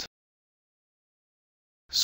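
Near silence: a dead, digitally silent gap with no room tone, cut off by speech at the very start and very end.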